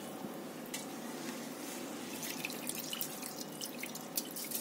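Spiced biryani water boiling hard in an aluminium pressure cooker pot, bubbling with scattered small pops and ticks.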